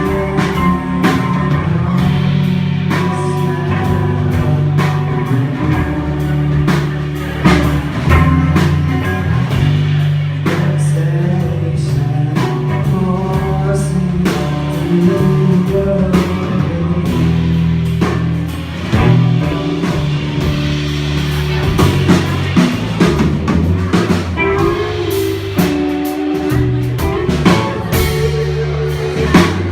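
Live band playing a loud rock number, with electric guitar, bass and drum kit.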